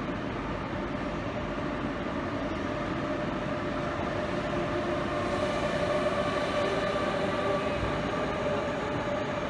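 Renfe AVE 'duck bill' high-speed train rolling slowly through the station: a steady running noise with a humming electric whine. It grows a little louder in the second half as the power car goes by.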